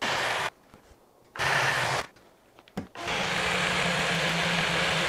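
BlendJet original portable blender's battery motor and blade running on a frozen-fruit smoothie in three spells, two short ones and then a longer steady run, cutting out in between: the blade locking up on the thick mix.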